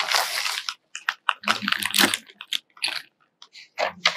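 Cardboard box being opened and handled by hands in vinyl gloves, with the plastic wrap inside crinkling: a longer scraping rustle at first, then a run of irregular short crackles and rustles.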